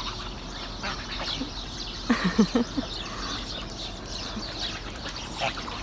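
Domestic geese calling: a quick run of several short, low calls about two seconds in, over faint scattered bird calls.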